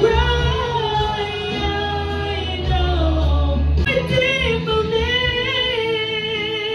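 A woman singing a gospel worship song into a handheld microphone over instrumental accompaniment with a steady low bass. The line slides between notes for the first few seconds, then settles into one long held note with a slight vibrato.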